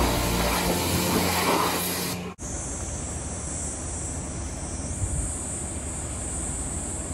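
Background music that cuts off suddenly about two seconds in, followed by steady wind noise buffeting the microphone, with a faint high hiss over it.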